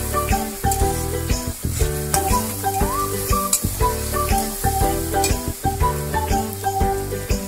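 Sliced onions sizzling in hot oil in a metal kadai as a metal spatula stirs them, scraping the pan in short repeated ticks. This is heard over background music with a melody and a bass line.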